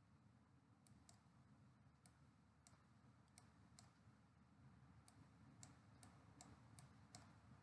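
Near silence: a faint low background hum with about a dozen faint, irregularly spaced clicks.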